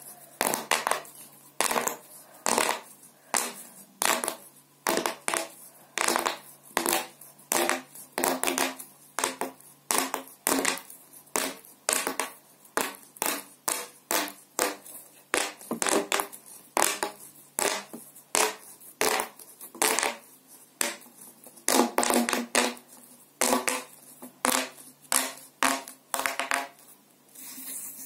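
Corrugated plastic washing-machine drain hose being pushed together and pulled out by hand, its folds snapping shut and open with a run of sharp clacks, about two a second.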